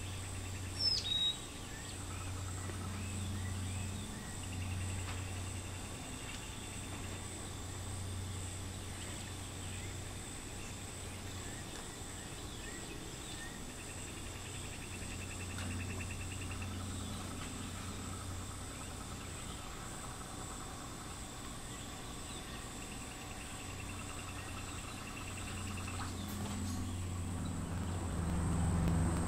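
Outdoor insect chorus: a steady high-pitched drone with pulsed trills that come and go every several seconds. There is a short bird chirp about a second in, over a low rumble.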